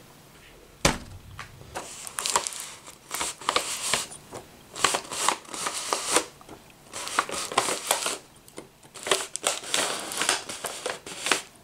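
A sharp knock about a second in, then the hand-cranked K'nex rotary press turning: irregular clicking and crackling from its plastic K'nex gears and crank, and from the wrapping paper being drawn between the rollers.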